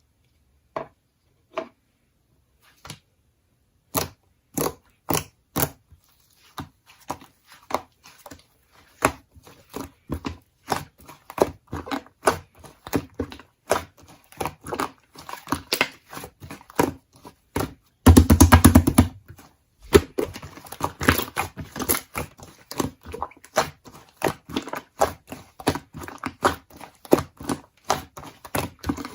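Slime being squished and poked by hand, giving a run of sharp clicks and pops that are sparse at first and then come thick and fast. About eighteen seconds in there is a louder, denser burst lasting about a second and a half.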